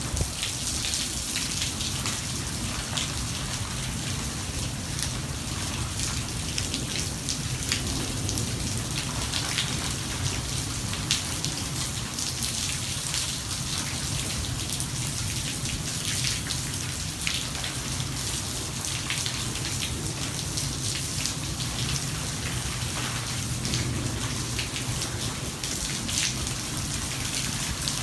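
Steady heavy rain from a thunderstorm, pouring down with many sharp individual drop hits on surfaces.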